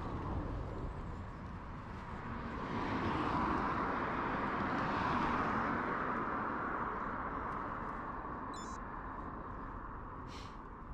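A road vehicle passing, its noise swelling over a couple of seconds and then fading away, over a steady low rumble.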